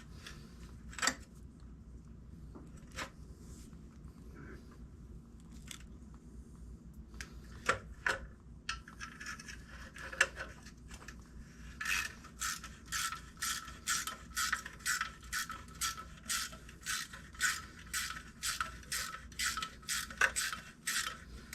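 A few scattered metal clinks and knocks, then a ratchet wrench worked back and forth about twice a second, each backswing giving a short burst of ratcheting clicks as a bolt is run in.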